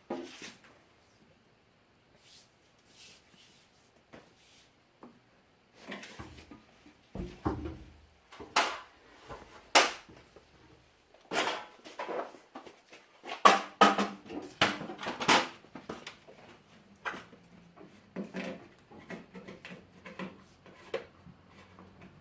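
Scattered knocks, taps and rubbing as a rubber window gasket is handled and pressed into a step van's window opening. The loudest, densest knocks come in the middle.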